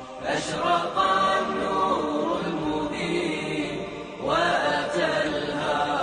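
An Arabic nasheed in praise of the Prophet's birth, sung by a group of voices with long, gliding held notes; a new phrase swells in about four seconds in.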